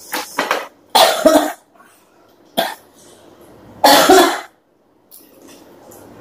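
A woman coughing: a few separate harsh coughs, the loudest about a second in and about four seconds in, with a short one between.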